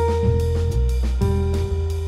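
Contemporary jazz guitar trio playing: the guitar holds one long note for about a second, then a lower long note, over bass and drum kit with cymbal strokes.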